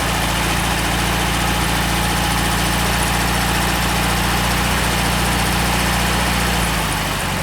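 VW Beetle's 1600 single-port air-cooled flat-four engine idling steadily, its note changing slightly near the end.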